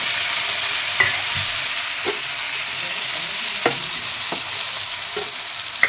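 Sliced onions, bell peppers and tomatoes sizzling in hot oil in a frying pan as they are stirred. About six sharp clicks of the stirring utensil against the pan punctuate the steady hiss.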